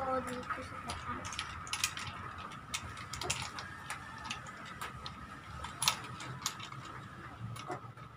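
Irregular plastic clicks and rattles from a ring light being handled and fitted onto its tripod mount, over a faint steady high hum.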